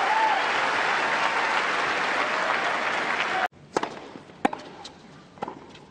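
Stadium crowd applauding between points. About three and a half seconds in the applause cuts off abruptly, and a tennis rally follows in a quiet stadium: a few sharp racket-on-ball hits and bounces.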